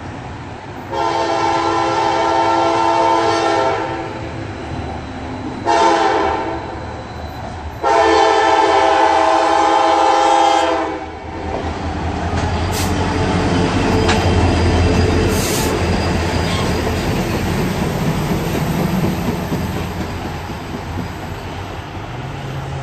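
Norfolk Southern diesel locomotive's multi-chime air horn sounding a long blast, a short one, then another long one, at a grade crossing. Then the locomotive passes close with a rising and fading low engine rumble, followed by the cars of the track geometry train rolling along the rails.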